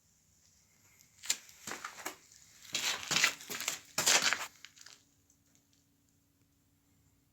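Packaging material being crumpled and torn by hand, in several rustling, crackling bursts between about one and five seconds in.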